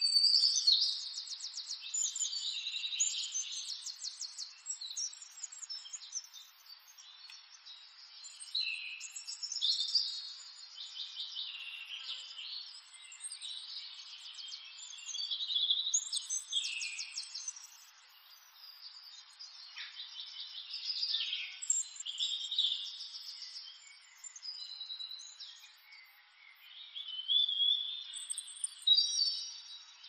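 Small birds chirping and trilling in repeated bursts of a couple of seconds, about every six seconds.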